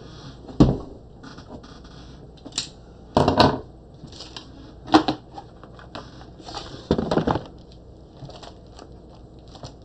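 Crinkly rustling of plastic-bagged comic books and packing material being handled, with four louder thumps as comics are set down on the stack on the desk.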